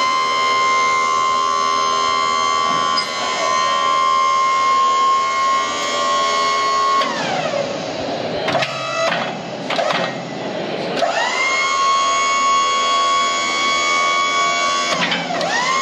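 Hydraulic pump motor of a Bessler 3000 series arm bale bed whining as it moves the bale arms: it spins up to a steady high whine for about seven seconds, winds down, a few clicks follow, then it runs again for about four seconds and briefly once more near the end.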